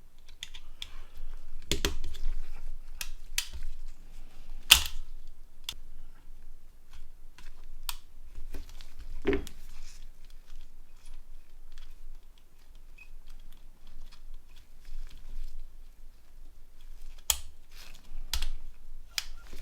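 Small plastic parts of a Nokia N80 handset being handled and fitted together by hand: scattered light clicks and taps, with a sharper click about five seconds in, another around nine seconds, and a few more clicks near the end.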